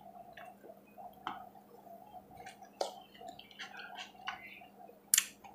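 Soft chewing and wet mouth clicks of someone eating lamb, with scattered smacks and a sharper smack near the end.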